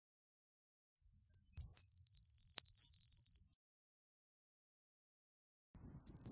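Eurasian blue tit singing: a few high, thin notes stepping down into a fast, even trill, about two and a half seconds long, starting a second in. A second phrase begins near the end.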